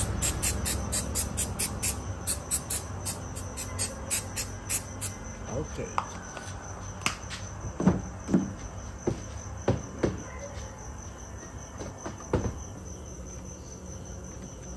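Short puffs of electronics contact cleaner hissing from an aerosol can, about three a second, stopping about five seconds in; the spray is cleaning dirt off the wiring connection of a mirror turn-signal light that would not work. A cricket trills steadily throughout, and a few light plastic knocks come later as the mirror parts are handled.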